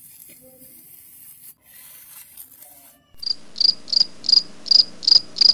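Faint scraping of a metal scraper blade drawn through damp sand. About three seconds in, a cricket starts chirping, loud and evenly spaced at about three high-pitched chirps a second.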